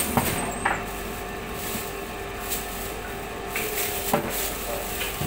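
Butcher's knife cutting and scraping raw pork away from the bone on a cutting table, with a few sharp knocks, the loudest about four seconds in, over a steady background hum.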